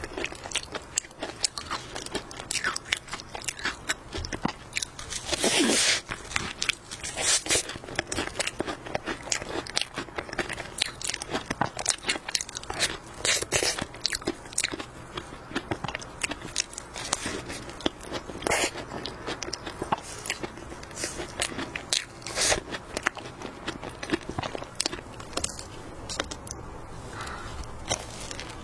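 Close-up biting and chewing of cream puffs with a flaky, crumbly pastry crust: crisp crackles and crunches with each bite and chew, a louder crunch a little over five seconds in.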